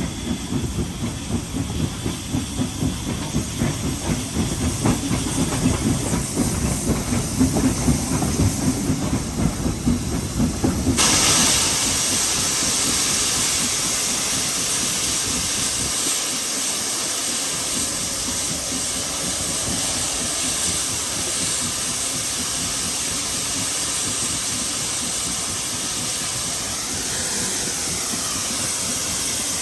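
Heritage steam train on the move, its running making a rhythmic pulsing noise, until about a third of the way in a steady hiss of steam sets in suddenly and carries on.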